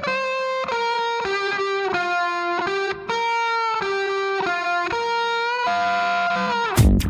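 Background music: a lead electric guitar plays a melody of held notes, one after another, with almost no drums. Near the end the full band with drums comes back in.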